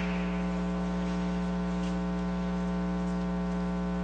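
Steady electrical mains hum with a stack of overtones on the broadcast audio, unchanging in pitch and level.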